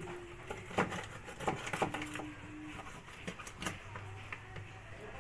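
Kitchen knife slicing through a deboned milkfish and tapping on a plastic tray, heard as a few scattered clicks and knocks.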